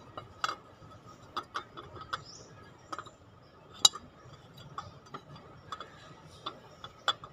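Irregular metal clicks and clinks as a steel water pump pulley is shifted against the new pump's hub, trying to get its bolt holes onto the studs; the sharpest clink comes about four seconds in, another near the end.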